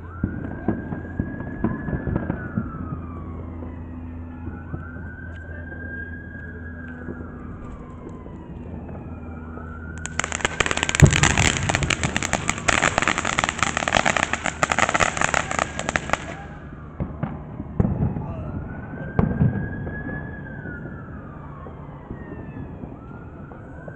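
A ground fountain firework spraying and crackling for about six seconds, starting about ten seconds in, with a few sharp thumps around it. A siren wails behind it, slowly rising and falling about every four seconds.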